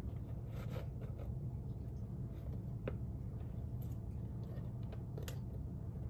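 Faint, scattered light clicks and scrapes of small metal and wooden craft pieces being handled and set down on a wooden panel board, over a steady low room hum.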